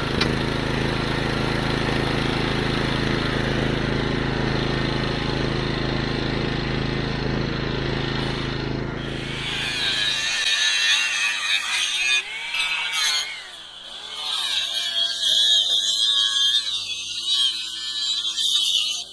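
A portable generator's engine running steadily. About ten seconds in it gives way to an angle grinder cutting through the rusted steel bars of a cattle grid: a high whine that dips briefly and then picks up again.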